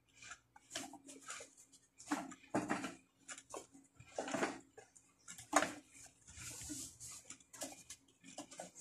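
Plastic vacuum cleaner housing cover being handled and fitted back on: irregular clicks, knocks and scraping rustles of plastic parts.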